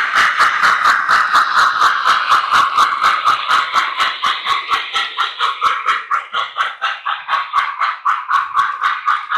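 Model steam locomotive running with its sound, chuffing steadily at about four beats a second over a continuous hiss.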